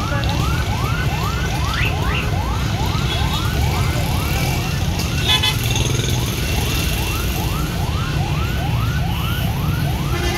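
A siren sounds in rapid rising sweeps, about three a second and evenly repeated, over a steady low rumble of traffic.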